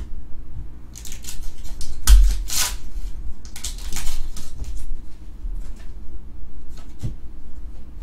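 Foil wrapper of a Pokémon booster pack crinkling and tearing open in a run of crackly bursts, loudest about two seconds in with a thump, then softer card handling and a single click near the end.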